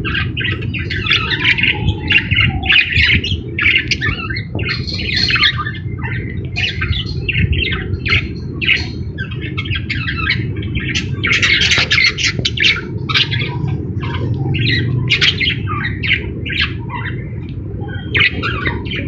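Pet lovebird calling in a rapid run of short, sharp squawks and chirps, over a steady low rumble.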